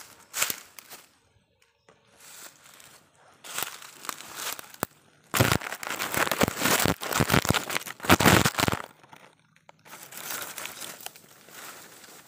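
Crackling, rustling noise of leaves and twigs brushing against the phone and of dry leaf litter underfoot, coming in uneven bursts. It is loudest for about three seconds in the middle.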